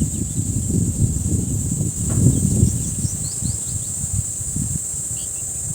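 A steady high-pitched insect chorus, with an irregular low rumbling noise underneath that is the loudest part, and a few faint short chirps about three seconds in.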